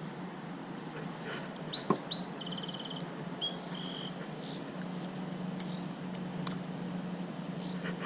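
A songbird singing one short phrase of quick high whistled notes with a fast trill in the middle, about two seconds in, over steady outdoor background noise.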